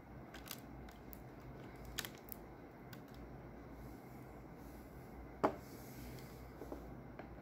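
Faint clicks and taps of hands handling the opened laptop's plastic and metal parts, a few light ones in the first three seconds and one sharper knock about five and a half seconds in.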